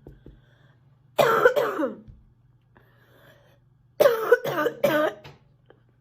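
A sick girl coughing: two loud coughs, a breath drawn in, then a quick fit of about four coughs.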